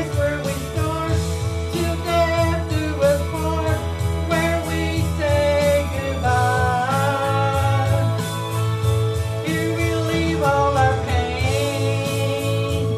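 A woman singing a gospel song into a handheld microphone over an instrumental accompaniment with steady bass.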